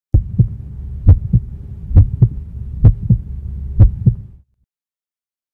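Heartbeat: five double thumps (lub-dub), a little under one beat a second, over a steady low hum, stopping suddenly about four and a half seconds in.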